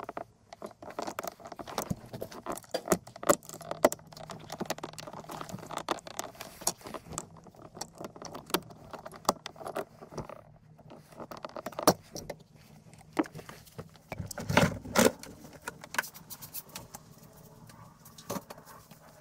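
Metallic clicking and rattling of a Toyota RAV4 rear seat's release cable and seat-frame hardware as the cable end is worked loose by hand, with a louder rattle about fifteen seconds in.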